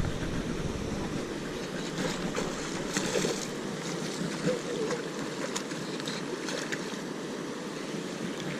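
Steady wash of moving water and wind, with a few short splashes at the pond's surface around the middle, where the water boils up.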